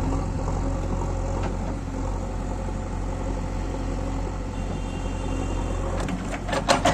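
JCB 3DX backhoe loader's diesel engine running steadily, with a few sharp metallic clanks in the last second.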